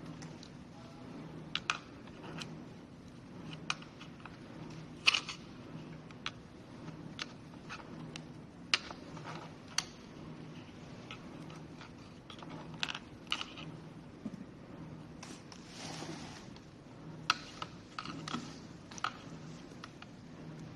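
Irregular small clicks, taps and scrapes of hands and a tool working glue off a plastic housing, over a faint low steady hum.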